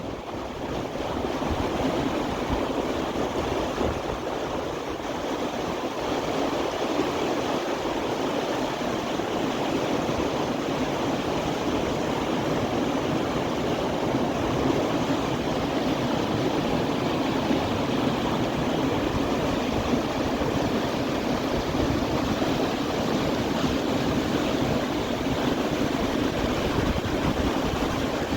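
Steady rush of the Lachine Rapids on the St. Lawrence River, fast water tumbling over the rapids.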